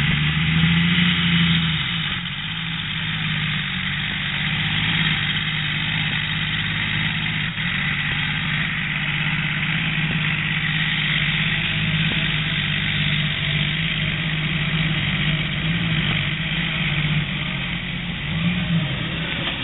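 A modified pulling tractor's engine running hard under full load as it drags the weight sled down the track, a loud, steady, deep drone that holds its pitch.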